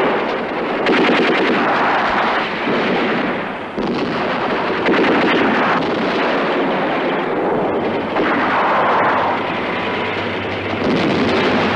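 Film battle sound effects: dense rifle and machine-gun fire mixed with shell blasts. A rapid machine-gun burst comes about a second in.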